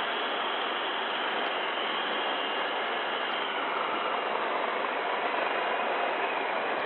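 Steady, even noise of a Coast Guard helicopter holding a hover, heard through the crew intercom.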